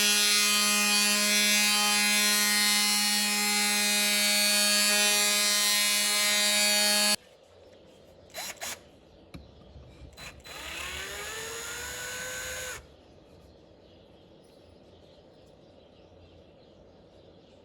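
Electric power tool motor running steadily at full speed, then switched off about seven seconds in. After two short blips, it runs again for about two seconds, its pitch rising as it spins up, then stops.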